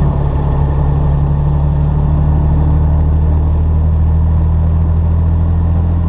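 Semi truck's diesel engine droning steadily at road speed, heard inside the cab.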